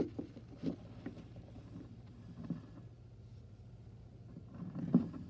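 Handling noise from a phone camera being moved against cloth: scattered soft rustles and bumps over a faint steady hum, the loudest just before the end.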